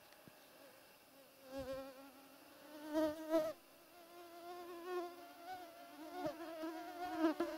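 A flying insect buzzing close to the microphone, its pitch wavering up and down as it moves, starting about a second and a half in. A few faint knocks sound under it.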